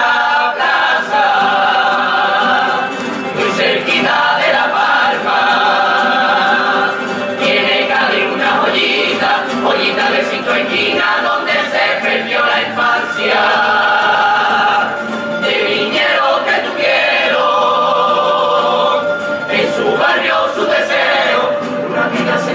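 Cádiz carnival coro singing a tango: a large mixed choir of young voices in unison and harmony, backed by strummed Spanish guitars and bandurrias, through a street PA.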